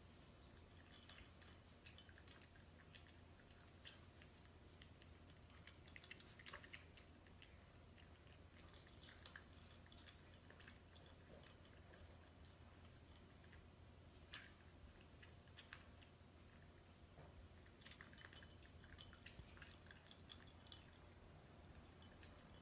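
Faint crunching of a cat chewing dry kibble, in scattered bursts of small clicks, with light clinks of kibble and teeth against the bowl; the loudest clicks come about six and a half seconds in.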